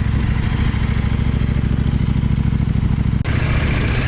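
Motorcycle engine running steadily on the ride, with wind noise over the top. The sound changes abruptly about three seconds in.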